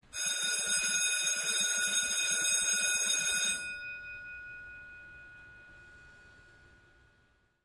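Electric school bell ringing for about three and a half seconds. It then cuts off, and the gong's ring fades away over the next few seconds.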